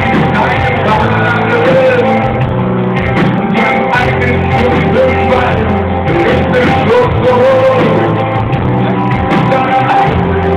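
Rock band playing live with a singer, in a fan's concert recording whose sound is poor: loud, bass-heavy and muffled.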